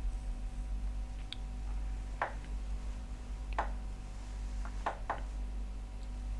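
Light clicks and taps, about six of them, three close together near the end, from a soldering iron and a phone logic board being handled and set against each other on a workbench. A steady low electrical hum runs underneath.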